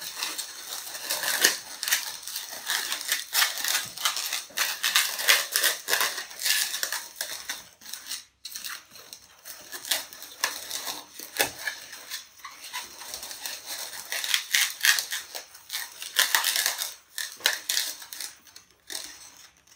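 Latex modelling balloons squeaking and rubbing as they are twisted and locked together by hand, a rapid, irregular run of squeaks with a short break about eight seconds in.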